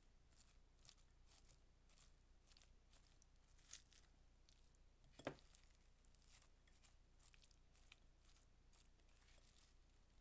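Faint, irregular wet squishing and soft clicks of a wooden spatula tossing squid rings, sliced onion and shredded cabbage in mayonnaise in a glass bowl, with one louder knock about five seconds in.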